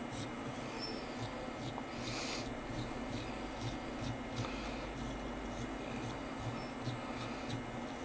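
Faint rubbing and scratching of fly-tying material as a twisted dubbing loop is wound around the hook in the vise, with light irregular ticks over a steady low hum.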